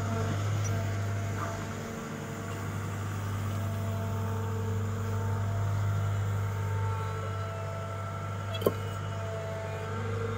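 CAT M314 wheeled excavator's diesel engine running steadily under load, with the hydraulics whining as the grapple swings and lowers a concrete curb. A single sharp knock near the end.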